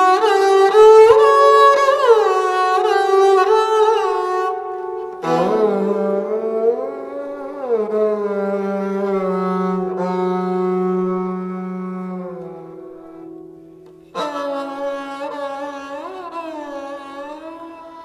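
Sarangi bowed with a hybrid traditional sarangi/double-bass bow, playing a slow Hindustani melody with sliding notes in three phrases. A lower held note sounds under the melody in the middle phrase.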